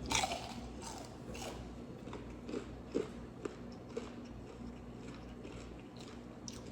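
Close-miked biting and chewing of crispy fried chicken: a crunchy bite at the start, then scattered soft crackles and mouth clicks that thin out in the second half.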